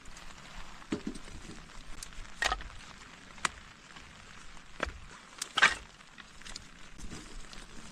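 A steady hiss of rain, with several sharp knocks or cracks over it, the loudest about five and a half seconds in.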